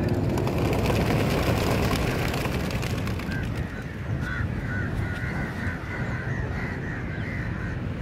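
A large flock of pigeons taking off from opened release crates: a dense flurry of wing flapping for about the first three seconds, thinning out as the birds climb. From about three seconds in, short bird calls repeat many times.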